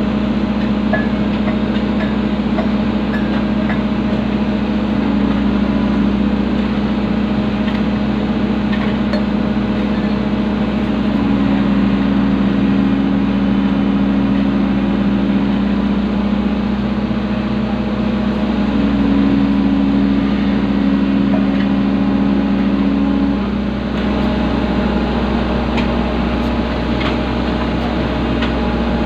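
Hydraulic excavator's diesel engine running steadily, heard from inside the cab. A higher tone comes and goes twice as the machine takes the weight of a concrete culvert section hanging from its bucket.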